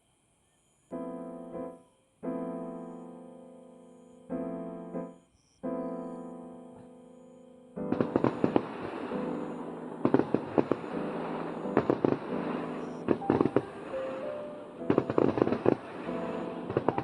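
Soft piano playing slow, ringing chords. About halfway through, fireworks break in with dense crackling and popping in rapid clusters while the piano carries on underneath.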